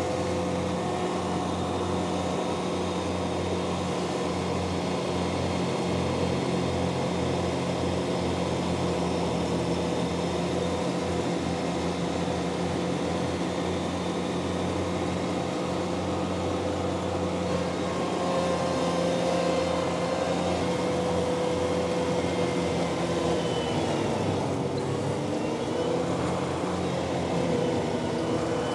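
Ventrac 4520 compact tractor's engine running steadily while its Tough Cut mower cuts cattails and tall grass. Its pitch sags briefly about 24 seconds in, then comes back up.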